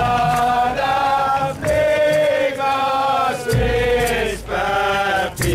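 A group of Bobo Shanti Rastafari marchers chanting together in unison, in sung phrases about a second long with short breaths between them. A brief low rumble comes in about three and a half seconds in.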